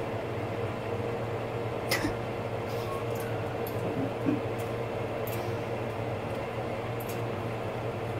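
Pot of water boiling on an electric cooktop: a steady hiss over a constant low hum. A few light clicks and taps come through about 2, 4, 5 and 7 seconds in.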